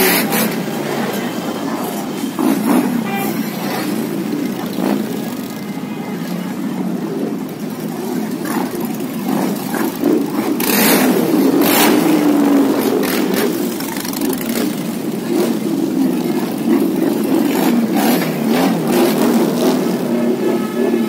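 A parade of Harley-Davidson motorcycles riding slowly past, their V-twin engines rumbling together with occasional revs. It gets louder about halfway through as a closer group passes.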